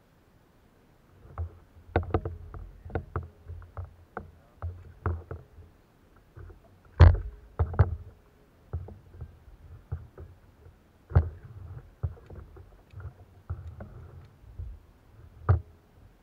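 Irregular knocks, taps and thuds on a kayak hull and fishing gear as the anglers shift and handle tackle in their kayaks, carried through the hull-mounted camera; the loudest knock comes about seven seconds in.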